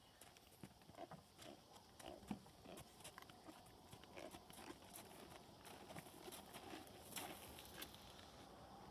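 Faint, slow hoof steps of a horse on sandy arena footing, with scattered small clicks and knocks.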